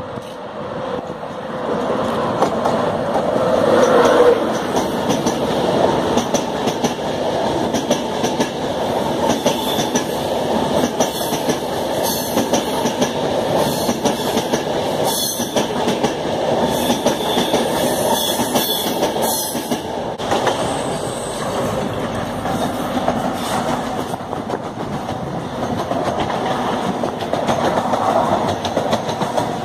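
Express passenger train passing close by, its wheels running loudly on the rails. The sound swells over the first few seconds as the train arrives, with repeated clicks from the wheels over rail joints. About twenty seconds in the sound changes abruptly to a second passing train.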